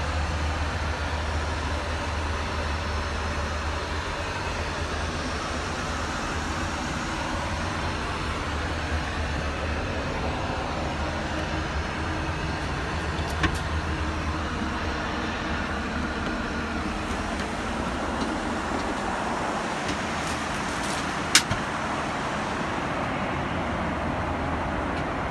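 Steady roar of a Boeing 737 cabin in flight, the engine and airflow noise that fills the aircraft, broken by a faint sharp click about 13 seconds in and a louder one about 21 seconds in.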